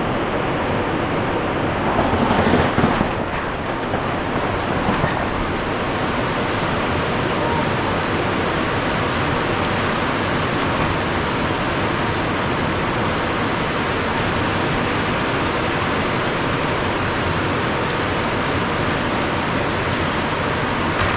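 Heavy tropical downpour hissing steadily, with a brief louder swell about two to three seconds in.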